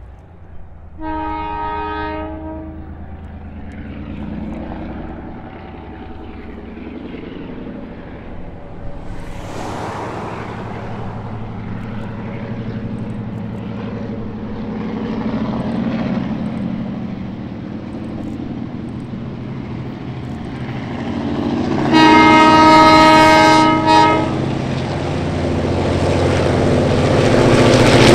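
Two NZR DA-class diesel-electric locomotives (EMD 567 V12 two-stroke engines) approaching and passing with a carriage train. The air horn sounds about a second in, then longer and louder about three quarters of the way through, ending with a short toot. Engine and wheel noise builds steadily and is loudest at the end as the locomotives pass.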